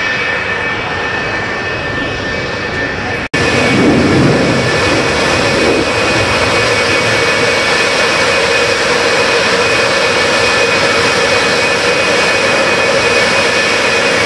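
F-4 Phantom jet engines running on the flight line: a steady high whine over loud rushing noise. The sound drops out for an instant about three seconds in, then goes on a little louder.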